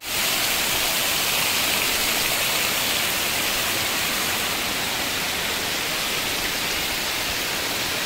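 Waterfall: water rushing in a steady, even stream of noise.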